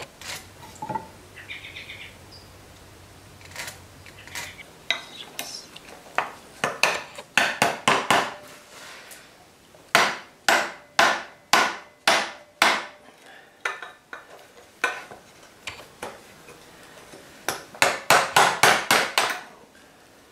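A mallet driving a chisel into a white oak table leg to chop out a recess, in runs of sharp knocks that come slowly at first and quicker near the end, about five blows a second.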